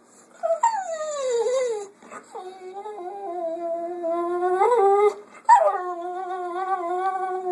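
A dog whining in long, drawn-out howling calls while begging for food: three long calls, the first sliding down in pitch, the next two held fairly level with a slight waver, and another starting at the very end.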